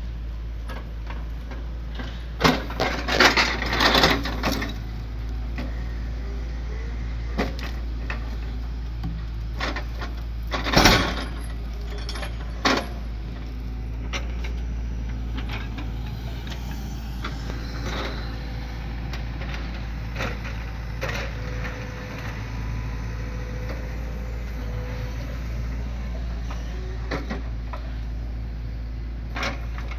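A hydraulic excavator's engine runs steadily while its log grapple sets logs onto a flatbed truck's bed. A clatter of wooden knocks comes a few seconds in, a single heavy thud of a log landing on the bed comes just before the middle, and lighter knocks of wood shifting follow.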